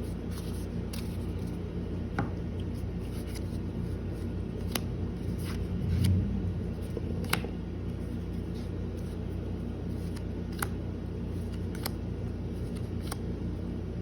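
Trading cards being handled and sorted by hand, giving faint scattered clicks and flicks over a steady low hum.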